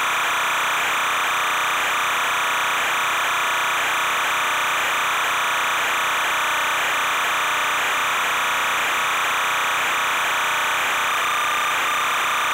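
Loud, unchanging hiss-like noise with a faint wavering tone near the middle of the range and no separate sounds.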